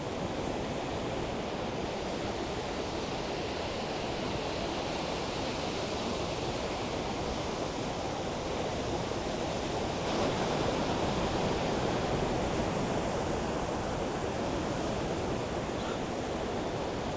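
Ocean surf: rough waves breaking and washing in a steady rush, swelling louder about ten seconds in.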